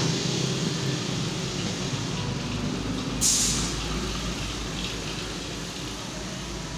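A hand pressing and rubbing a vinyl decal onto a painted metal motorcycle fuel tank, with a brief sharp rustling hiss about three seconds in. Under it runs a steady low background rumble.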